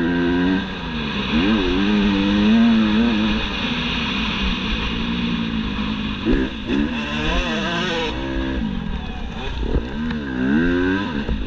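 Motocross bike engine at race speed on a dirt track, revving up and dropping back again and again as the rider works the throttle and gears, heard from on the bike.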